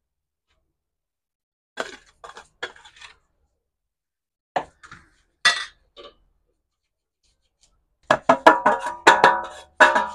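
A metal cup knocking and scraping against a stainless steel basin while flour is tipped out: a few clinks in the first half, then a quick run of ringing metal knocks near the end.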